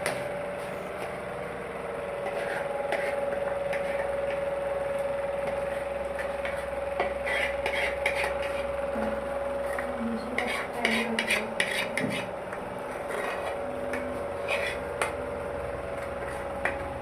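A metal spoon scraping and clinking against cookware as thick cooked sugar-candy paste is scooped out onto a plate, in irregular clusters of scrapes and knocks, over a steady hum.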